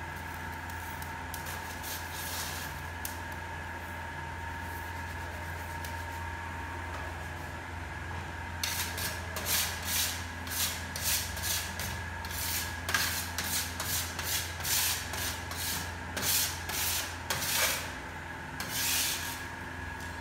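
Hands scraping and sweeping cremated bone fragments across a metal tray: a run of rough scraping strokes, about one or two a second, starting about eight seconds in and stopping near the end, over a steady hum.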